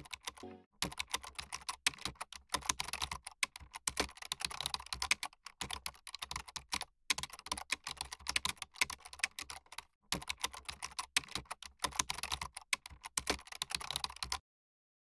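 Rapid computer-keyboard typing, a dense irregular run of key clicks with brief pauses, which stops abruptly shortly before the end.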